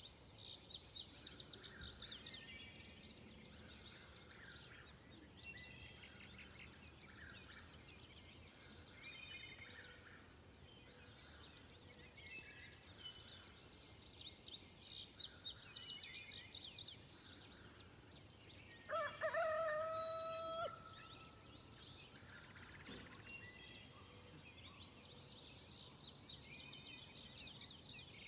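Songbirds singing in repeated rapid trilled phrases, one after another. About two-thirds of the way through, a rooster crows once in a long held call.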